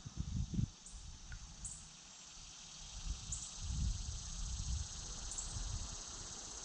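Outdoor ambience: low rumbling gusts of wind on the microphone over a steady high hiss, with a few faint high ticks.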